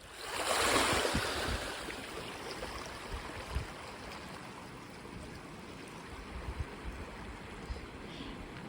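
Small wave washing up onto the sand, swelling to its loudest about a second in, then settling into a steady hiss of water running over the beach.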